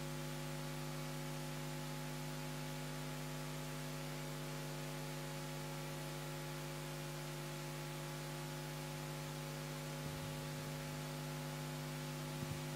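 Steady electrical hum with a buzz of many evenly spaced overtones over a faint hiss, with a few faint ticks near the end.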